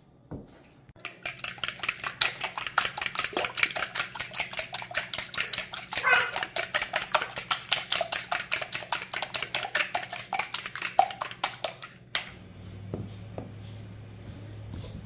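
Eggs being beaten in a bowl: a utensil clicking rapidly and evenly against the bowl, about six or seven strokes a second. The beating stops about twelve seconds in, and a low steady hum and a few light knocks follow.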